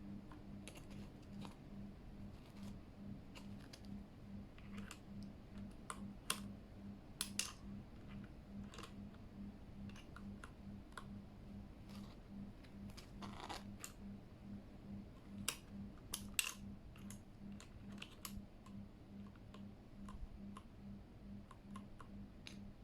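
Scattered, irregular plastic clicks and taps from a Keychron K8 mechanical keyboard and its keycaps, a few louder ones around a third of the way in and past the middle. A faint low pulse runs underneath at about two beats a second.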